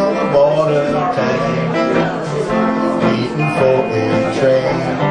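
Live acoustic country-blues played on two guitars, one of them an acoustic, strumming the opening of the song before the first sung verse.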